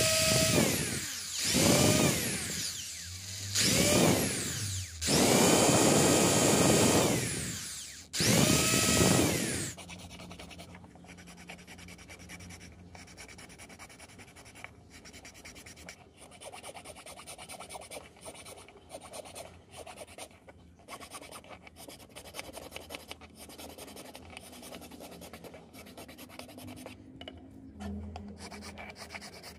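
Cordless drill boring holes through a white PVC plate in four or five short runs, each spinning up with a rising whine and winding down. From about ten seconds in, a much quieter needle file rasps back and forth on the plastic, squaring out the drilled hole.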